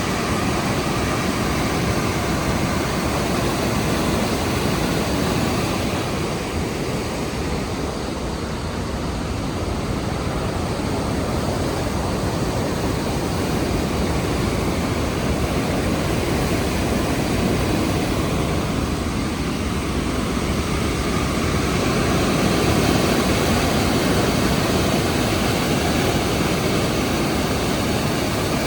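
The Rhine Falls' water crashing down: a steady, loud rush of falling water. It eases slightly about a quarter of the way in and swells a little past the middle.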